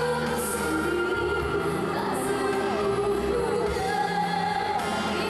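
A woman singing live into a handheld microphone over musical accompaniment, holding long notes.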